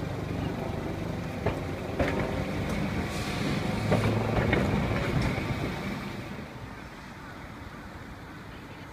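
Streetcar passing close by, its wheels rumbling on the rails with several sharp clicks and knocks. The sound falls to a quieter street background after about six seconds.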